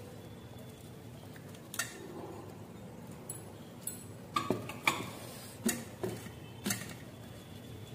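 Stainless-steel plates and a serving bowl clinking as rice is eaten by hand, with about half a dozen sharp knocks, most of them in the second half.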